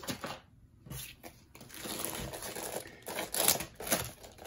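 Thin plastic wrapping crinkling and rustling as it is pulled off a rolled diamond painting canvas. Quiet for about a second, then the rustling builds, loudest near the end.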